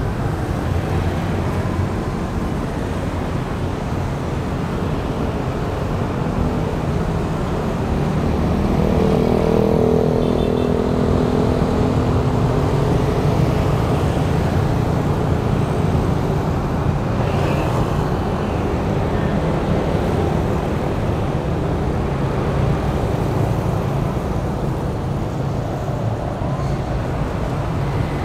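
Steady road traffic of motorbikes and cars passing, with one engine growing louder about ten seconds in as it goes by.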